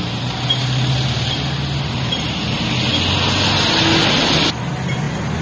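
Motor vehicle running: a steady, dense noise with a low hum underneath. The upper hiss drops away abruptly about four and a half seconds in.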